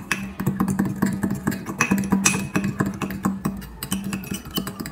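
Metal fork stirring a thick honey and baking soda paste in a small glass bowl: rapid, irregular clicks and scrapes of the tines against the glass, with a low hum that comes and goes.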